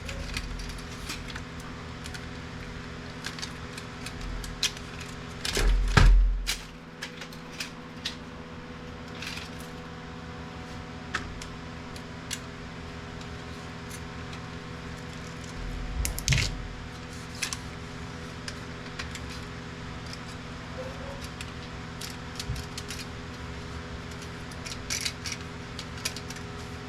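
Scattered clicks, taps and light rattles of plastic and metal printer parts being handled and pried apart, with two louder knocks, one about six seconds in and one around sixteen seconds. A steady low hum runs underneath.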